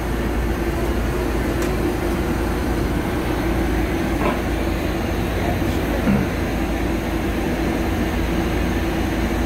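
City bus standing at the stop close by, running steadily: a low rumble with a constant hum.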